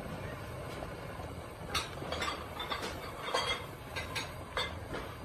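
Pot of sour curry with red tilapia at a rolling boil on a gas burner: steady bubbling over a low rumble, with a few light clinks and knocks between about two and five seconds in.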